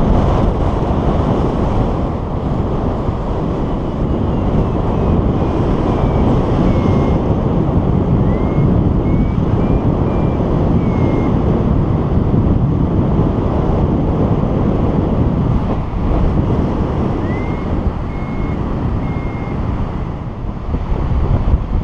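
Wind rushing and buffeting over the microphone of a paraglider in flight: a loud, steady, low rush.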